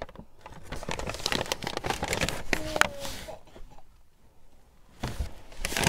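Brown paper takeout bag rustling and crinkling as it is handled, a dense run of crackles over the first three seconds or so, then quieter.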